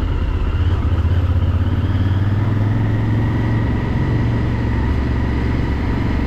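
Honda XL1000V Varadero's 1000 cc V-twin engine running at low road speed, heard on board the bike as a steady low engine note.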